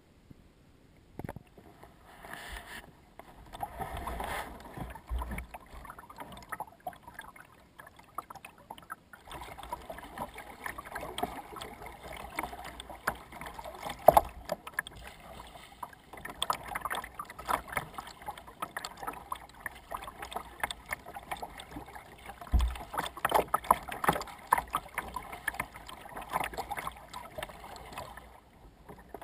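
Kayak being paddled on a river: water splashing and lapping at the hull in uneven strokes, with a sharp knock about fourteen seconds in.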